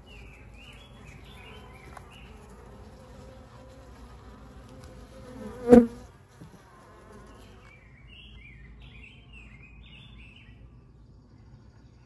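Honey bees buzzing steadily in an open Layens horizontal hive. About halfway through comes one sharp knock of wood on wood from the hive's frames and box.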